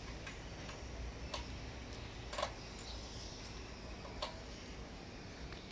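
A few sharp clicks and taps, about five spread unevenly over several seconds with the loudest about halfway through, from hands working loose the front cover panels and their fasteners on a Scania G 410 truck cab. A faint low hum runs underneath.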